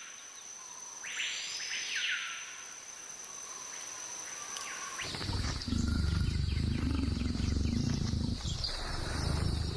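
Jungle ambience with a steady high insect whine and one swooping whistled call that rises and falls. About five seconds in, a louder deep, low growl like a big cat's sets in and carries on.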